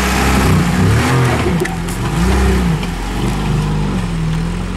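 Lada Niva's engine revving up and down in a series of short rises and falls while the 4x4 is driven off-road.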